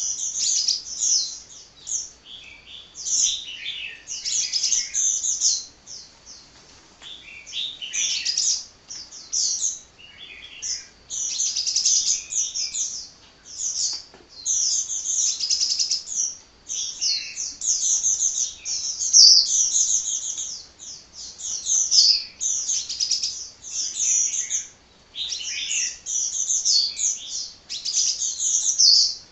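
Sunbird singing: rapid, high-pitched twittering phrases delivered one after another with only brief pauses.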